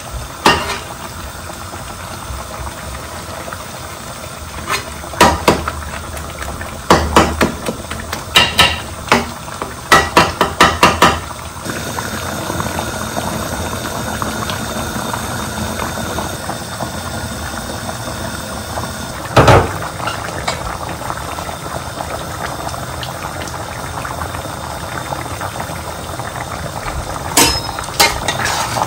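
A metal spatula knocking and scraping against a metal karahi as chicken and tomatoes are stirred, a quick run of clicks, then the curry bubbling steadily at a rolling boil over high heat as its excess water cooks off. There are a few more knocks of utensil on pan, one about two-thirds through and a couple near the end.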